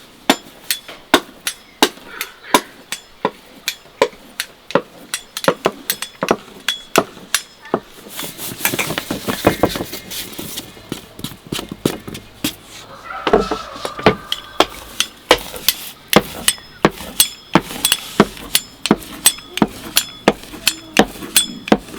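A steady series of sharp knocks, about three every two seconds, like something being struck or chopped on a hard surface. A rustling, scraping stretch comes about eight seconds in, and a shorter one near fourteen seconds.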